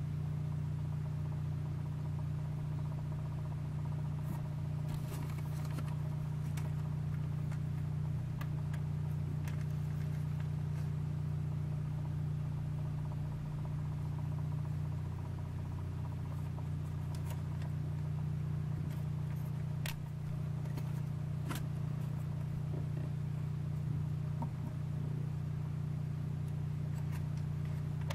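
Small electric motor of a rotating mirrored display turntable running with a steady low hum, with a few faint clicks scattered through.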